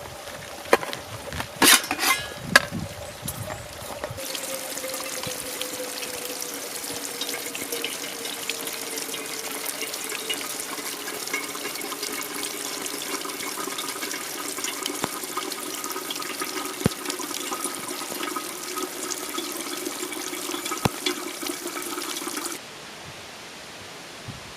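Water running or pouring steadily, with a faint tone that slowly falls in pitch; it stops abruptly near the end. A few sharp knocks come in the first seconds.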